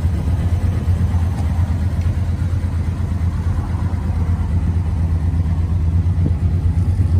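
Dodge Dart's 273 V8 idling steadily: a low, even drone.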